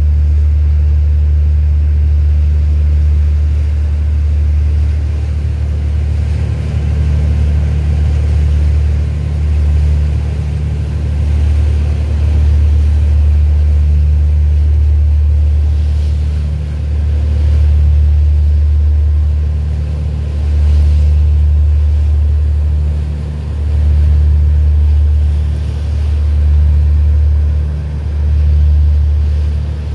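Boat engine running with a deep, steady rumble that swells and eases every few seconds.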